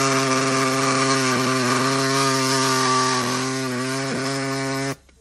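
Pneumatic air saw with a blunt blade cutting through a rusty steel exhaust pipe, running with a steady buzz. Its pitch dips briefly a few times, and it stops about five seconds in.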